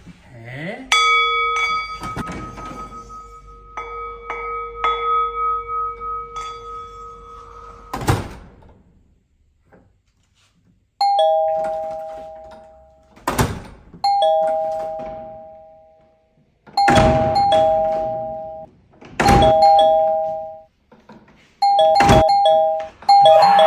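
Two-tone ding-dong doorbell chime rung over and over in the second half, five times, each a high note falling to a lower one, with loud thumps between the rings. Before that a held steady tone slowly fades and is cut off by a thump about eight seconds in.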